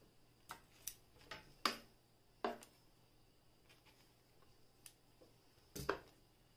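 Scattered clicks and knocks of fabric and small items being handled at a sewing machine, about seven in all, the loudest a dull knock near the end. The machine itself is not running.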